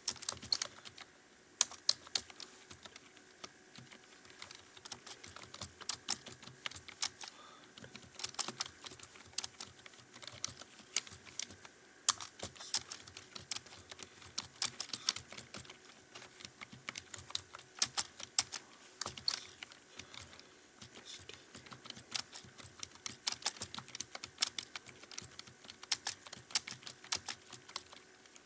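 Continuous fast typing on a computer keyboard: a dense, uneven run of key clicks, several a second, with brief pauses.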